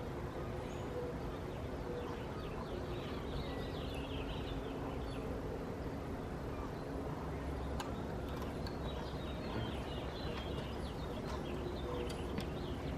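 Outdoor background of a steady low rumble with faint birds chirping in two spells, and a couple of faint clicks.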